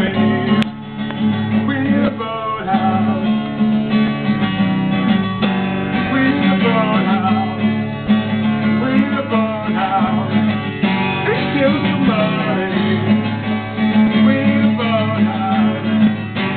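Acoustic guitar strummed steadily, with voices singing a song over it.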